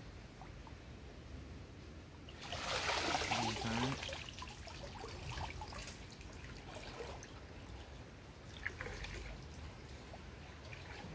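Water sloshing and splashing as someone wades chest-deep through a muddy creek. The loudest splashing comes about two seconds in and lasts a second and a half, followed by quieter sloshes and a single sharp knock.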